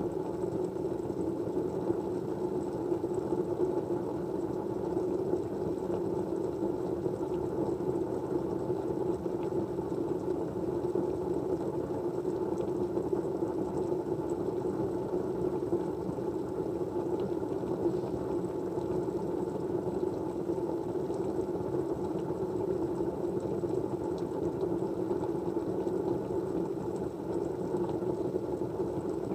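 Steady white-noise ambience: an even, unchanging rush weighted to the low-middle range, with a few faint ticks.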